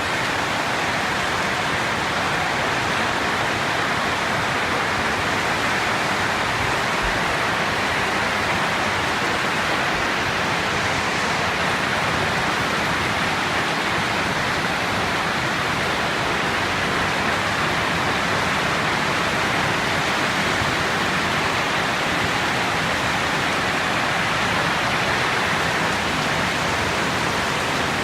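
Strong wind blowing, a loud, steady rush of noise that holds even without letting up.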